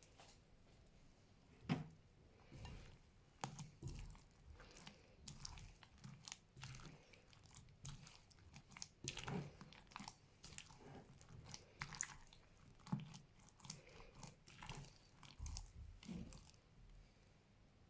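Fluffy green slime being squeezed and pressed by hands, giving faint, irregular crackles and clicks several times a second, with one sharper click about two seconds in.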